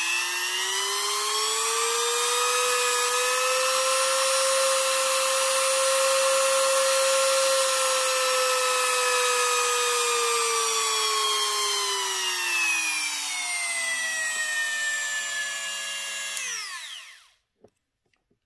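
TacLife rotary tool running with no bit in the collet, a high motor whine. Its pitch rises over the first few seconds, holds steady, then falls slowly. Near the end it drops quickly and stops as the tool is switched off and winds down.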